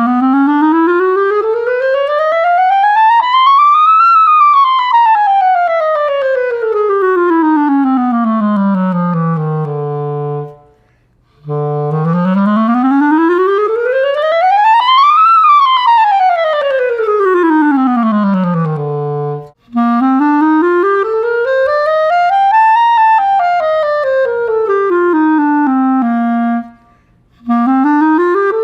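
Buffet Festival B-flat clarinet played solo: stepwise scales climbing from the low register up about three octaves and back down. There are two full-range runs, then a shorter run over a narrower range, and a fourth begins near the end, each separated by a brief breath.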